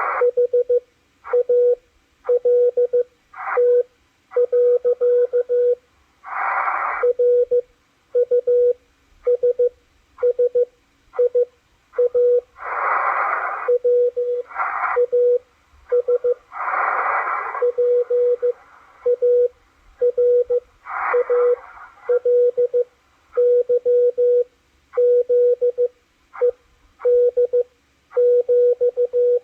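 Morse code from W1AW received on a Malachite DSP SDR receiver: a single tone of about 500 Hz keyed on and off in short and long elements. Bursts of band hiss rise in the longer gaps between characters.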